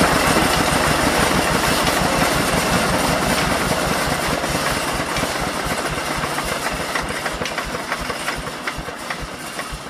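15HP Kirloskar single-cylinder diesel engine running down. Its firing beats slow and grow steadily quieter, as when the engine is being stopped.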